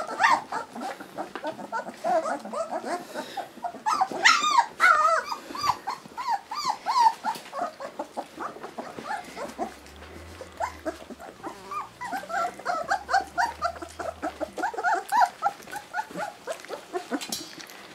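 A litter of young puppies whimpering and squealing together: many short, high cries that rise and fall in pitch, several a second, as the hungry pups crowd a feeding dish.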